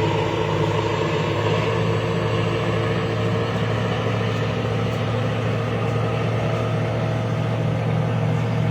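Passenger ship KM Barcelona 3A's engine running steadily at constant speed: a loud, even low hum with no change in pitch or level.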